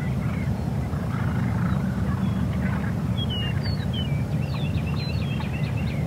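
Songbirds chirping and giving short whistled notes over a steady low rumble, which is the loudest sound throughout.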